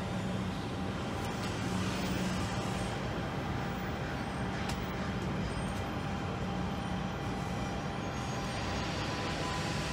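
Steady rumble of street traffic and running engines, with a low hum throughout.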